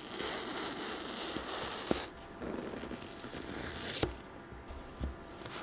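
Utility knife blade slicing through a foam squishy to trim off the excess: crackly scraping strokes, with a sharp click about two seconds in and another near four seconds.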